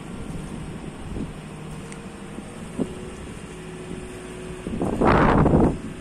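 JCB 540-140 telehandler's diesel engine running steadily at low revs. About five seconds in, a loud gust of wind buffets the microphone for nearly a second.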